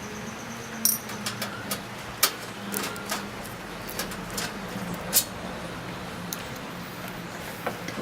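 Irregular small metallic clicks and clinks of a screwdriver and screws being worked on a desktop computer's metal case, over a low steady hum.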